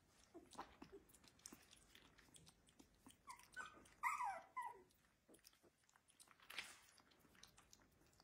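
Puppy feeding from a syringe: faint wet smacking and chewing clicks as it sucks at the tip, with a few short, high, falling squeaks from the puppy about three to four seconds in.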